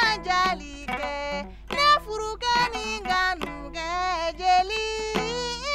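A griot's voice singing a praise song, the pitch wavering and sliding between held notes, over a plucked string instrument.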